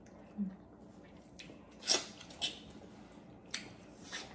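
Close mouth sounds of eating crab by hand: about six short, wet clicks and smacks as meat is sucked from the shell, the loudest about two seconds in.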